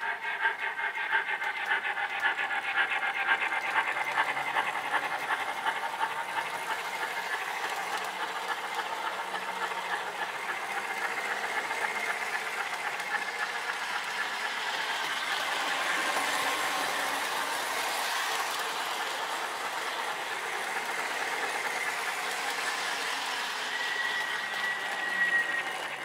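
MTH Rail King Pennsylvania Railroad B-6 0-6-0 switcher running on an O-gauge loop: its Proto-Sound 2.0 speaker plays rapid, even steam chuffing over the whir of the motor and wheels. A thin high squeal is held for a second or so near the end.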